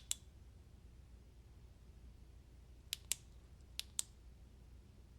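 Flashlight switch clicked: a single click at the start, then two quick pairs of clicks about three and four seconds in, as the light is cycled through its modes.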